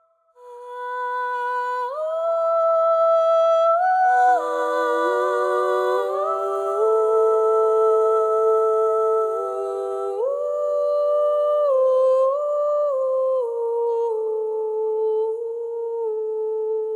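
Sampled wordless vocals from the Voximotive cinematic vocal library in Audiomodern's Soundbox sampler: layered sustained sung notes that glide from chord to chord, with reverb. It begins about half a second in.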